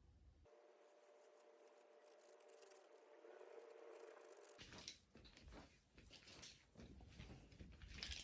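Very faint household sounds: a low steady hum for about four seconds that stops abruptly, then light irregular taps and rustles of small objects being handled.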